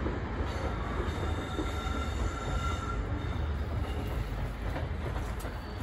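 Freight train pulling slowly away into the station, a steady low rumble of wheels on rail, with thin high wheel squeal for a couple of seconds near the start.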